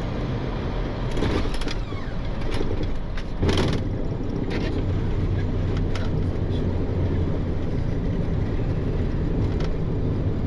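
Boeing 737 flight deck during touchdown and landing rollout: a steady rush of engine and airflow noise, broken by several sharp thumps in the first four seconds, the loudest about three and a half seconds in. After that a low drone swells and holds as the jet slows on the runway.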